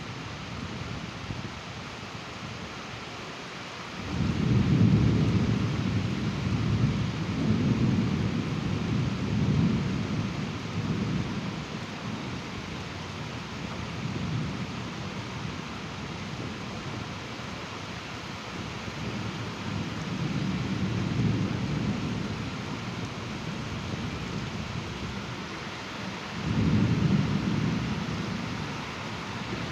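Steady rain with rolling thunder. A long low rumble swells about four seconds in and rolls on for several seconds, a fainter rumble comes later, and another peal breaks near the end.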